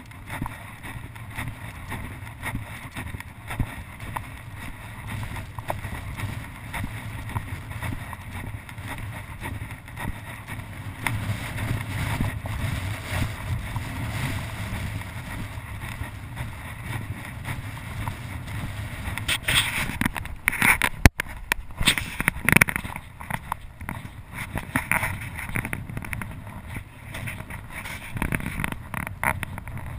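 Wind rumbling on a body-worn action camera's microphone, with the scuffs and rustle of footsteps in loose dune sand. About twenty seconds in there is a stretch of louder rustling with a sharp click.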